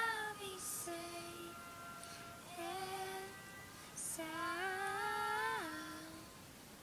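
A female voice singing slow, held notes, with audible breaths between phrases; the longest note, about four seconds in, rises slightly and then drops to a lower note.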